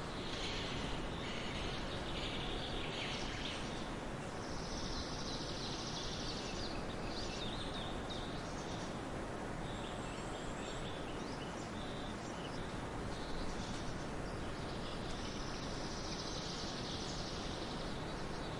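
Steady outdoor background noise with two bouts of high-pitched chirping, each a few seconds long, about a quarter of the way in and again near the end.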